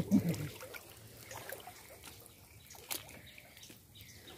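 Water trickling and lightly splashing in shallow water as hands feel about for fish, with a single sharp click about three seconds in.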